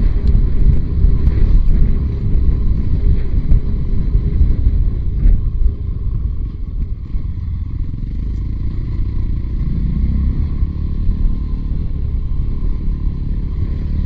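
Motorcycle engine running under way on a dirt track, with wind and tyre rumble. The engine climbs in pitch as it accelerates about ten seconds in.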